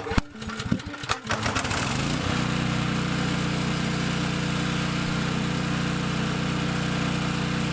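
Briggs & Stratton 5500 portable generator, converted to run on propane, being pull-started: a few knocks in the first second, then the engine catches about two seconds in and runs steadily.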